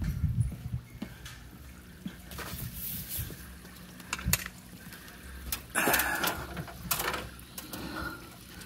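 Footsteps and handling noise from a handheld phone being carried along, with scattered clicks and knocks and a brief louder rustle about six seconds in.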